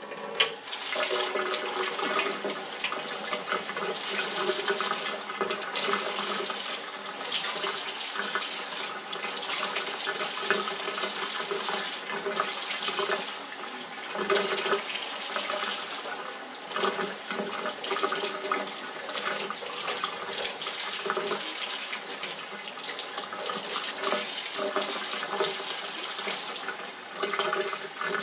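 Kitchen faucet running into a stainless steel sink, starting up right at the outset. The splashing wavers and briefly dips as the stream falls on hands and a wet puppy being rinsed under it.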